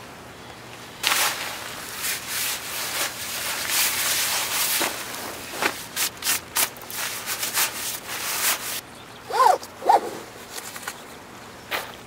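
Bursts of rubbing and rustling, then two short squeaks about half a second apart near the end.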